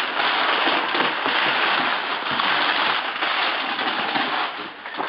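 Crumpled brown packing paper rustling and crackling as hands dig through it and pull it out of a cardboard box.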